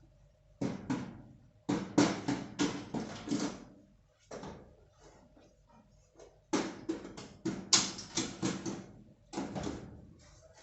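Repeated sharp knocks, struck in quick runs of several a second with short pauses between the runs.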